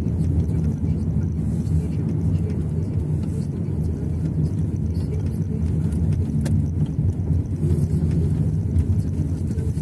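Steady low rumble of a car driving, its engine and road noise heard from inside the cabin, with one brief click about six and a half seconds in.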